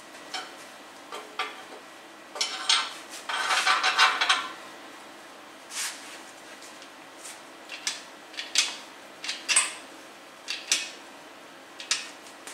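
Metal clanks and clinks of steel tools and parts against a bare cast-iron diesel engine block on an engine stand. A dense clatter of metal comes about two and a half seconds in and lasts about two seconds, followed by scattered single clinks.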